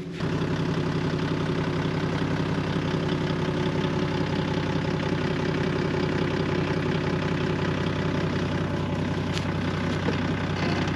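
The tow vehicle's engine running steadily at an even speed, with no revving, as it sits with the boat trailer at the creek edge.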